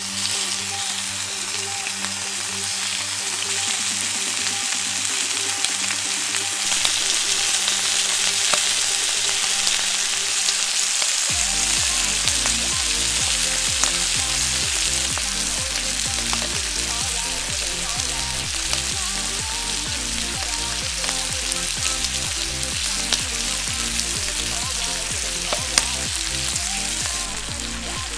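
Thick-cut bacon sizzling steadily in a hot iron frying pan greased with only a little oil. A continuous hiss is dotted with small crackles and pops.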